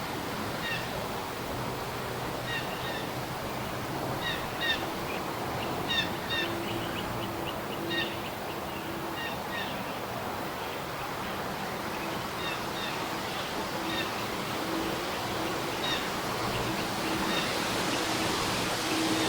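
Forest morning ambience: small birds give short, repeated chirping calls over a steady hiss of background noise. A broad, low aircraft rumble swells near the end.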